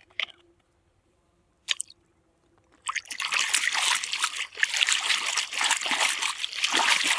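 A single light tap, then about three seconds in water starts splashing and trickling steadily as a muddy toy vehicle is rinsed clean.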